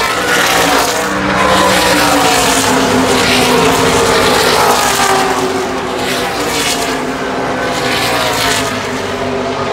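ARCA stock cars racing past the grandstand at full throttle, several engines overlapping, each one's pitch dropping as it goes by.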